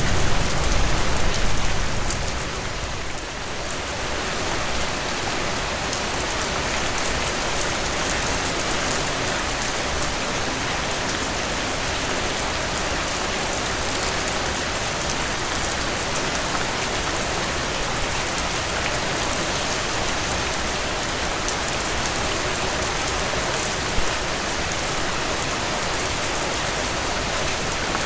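Steady rainfall: an even hiss of rain with fine drop patter on surfaces and no thunder. It is a little heavier for the first two seconds, then settles to a constant level.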